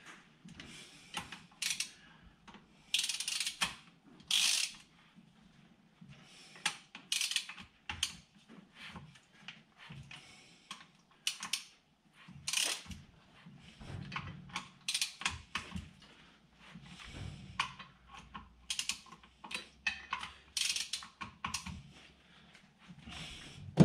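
Ratchet wrench clicking in short bursts, with small metallic tool clinks, as the rebuilt Nissan MR20DE engine is turned over by hand; it turns without binding.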